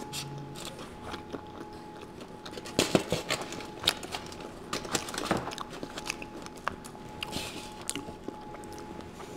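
A slice of thin-crust pizza being pulled from the pie on aluminium foil, close to the microphone: scattered crackles, foil crinkles and soft clicks as the slice comes free.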